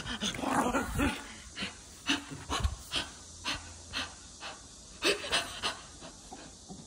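A Maltese dog panting in short, quick breaths while excited, with scattered clicks and rustles.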